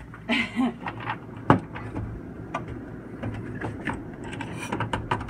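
Refrigerator freezer parts being handled and fitted back in place: scattered clicks and knocks, with one sharper knock about a second and a half in, over a low steady hum.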